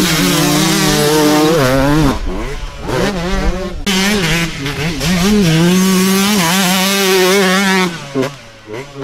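Enduro dirt bike engines revving hard on a dirt course. The engine note climbs and dips with throttle and gear changes, breaks off sharply a couple of times, and falls away near the end.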